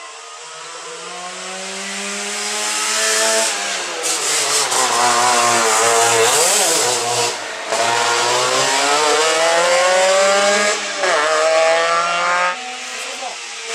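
Trabant rally car driven hard, its engine growing louder as it approaches. It lifts off briefly for the tight turn in the middle, then accelerates away, the engine note climbing and breaking off several times as it shifts gear.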